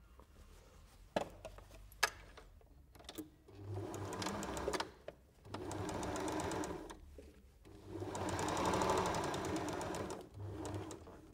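Janome electric sewing machine stitching a seam in three runs with short pauses between, the longest about three seconds, and a brief spurt near the end; two sharp clicks come before the first run.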